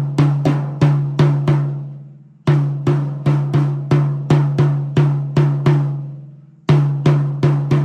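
A tom on a Pearl Roadshow drum kit struck in even single strokes about three a second, each ringing at one low pitch, with short pauses between runs about two and a half seconds and six and a half seconds in.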